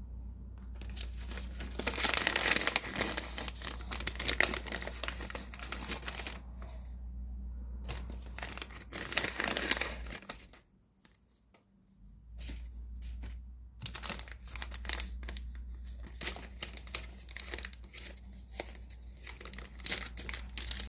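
Plastic packaging crinkling and tearing as fidget toys are unwrapped, in long bursts with a brief quiet gap about eleven seconds in, then quicker crackles and clicks.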